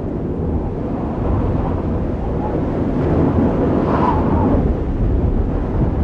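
Wind-storm sound effect: a steady low rumbling wind noise that grows slightly louder, with a brief whistling glide about four seconds in.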